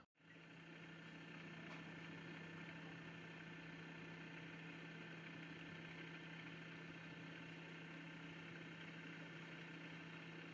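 Wood lathe motor running steadily with an even hum, starting just after a short gap.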